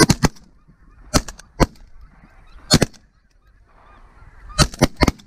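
Geese honking as a flock passes overhead: short, sharp honks, singly and in a quick run of four near the end, over fainter calling from the rest of the flock.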